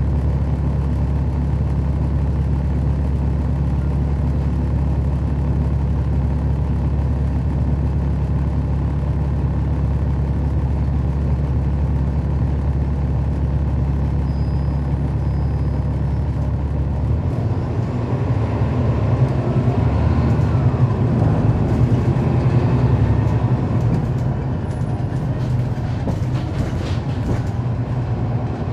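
Cummins ISL9 diesel engine of a NABI 40-SFW transit bus, heard from on board, idling steadily, then about seventeen seconds in the bus pulls away and the engine speeds up with a rising note. The ZF Ecolife automatic transmission makes almost no sound of its own, and a few clicks come near the end.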